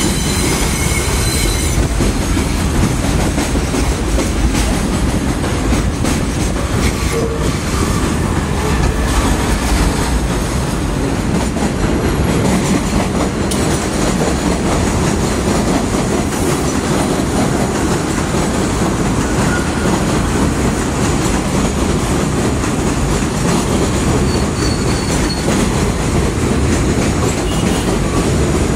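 New York City 6 subway train running over an elevated steel structure overhead: a loud, steady rumble of wheels on rails. Faint, brief high wheel squeals come in near the start and again near the end.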